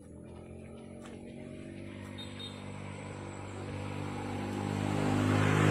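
A motor vehicle's engine approaching, its even drone growing steadily louder toward the end as it draws near.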